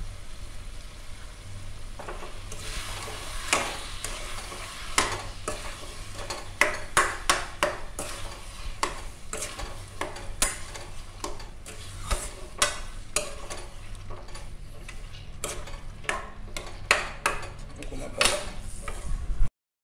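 Metal spatula stirring colocasia (taro) pieces in oil in a steel kadai, scraping and knocking against the pan many times over a steady frying sizzle. The stirring starts about two seconds in, and the sound drops out briefly just before the end.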